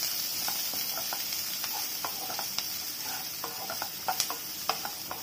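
Chopped onions, ginger and garlic sizzling in hot oil in a pan with a steady hiss, while a slotted wooden spoon stirs them, scraping and tapping against the pan in short scattered clicks.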